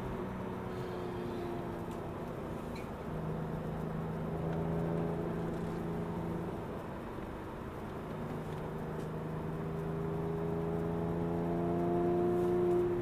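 Porsche 911 Carrera S (997) 3.8-litre flat-six engine heard from inside the cabin. The revs ease off at first, hold fairly steady, then climb slowly over the last few seconds before dropping off sharply near the end.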